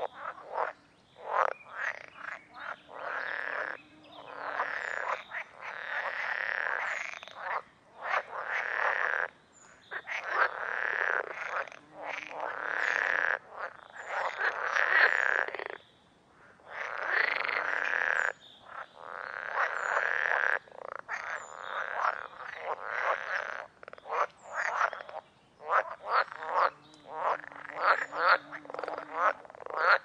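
A chorus of frogs croaking in a pond, the calls coming in dense runs of one to two seconds with brief pauses between them.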